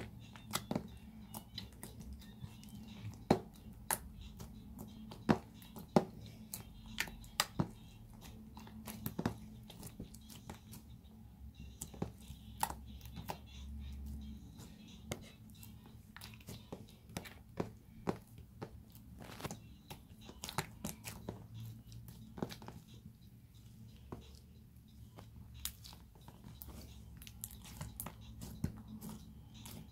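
Wet, watered-down slime squished and stretched by hand, giving a steady run of irregular sticky clicks and pops as it pulls apart and presses back onto the table. The added water is making it turn sticky.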